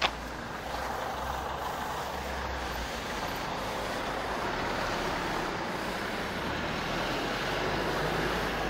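Street traffic: a large road vehicle running past, a steady engine and tyre rush that builds a little toward the end. There is a short sharp click at the very start.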